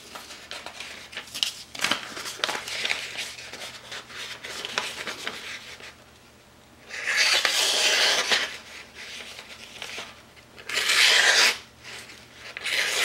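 High-carbon steel kitchen knife slicing through newspaper three times, each cut a loud papery hiss about a second long, after a few seconds of quieter paper rustling and scratching. The knife is being edge-tested after sharpening and cuts cleanly through the sheet.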